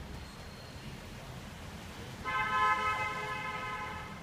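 A vehicle horn sounds once about two seconds in, held on one steady pitch for nearly two seconds, over a low steady rumble of street background.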